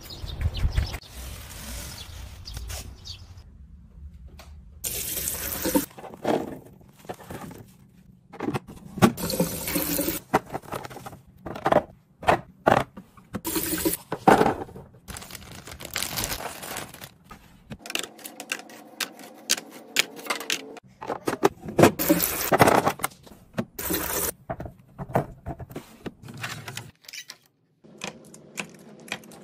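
Snack packages and storage containers being handled in a restock: irregular bursts of rustling, pouring and clattering with short pauses between them.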